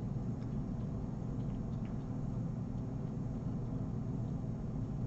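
Steady low rumble of background room noise, with a few faint ticks.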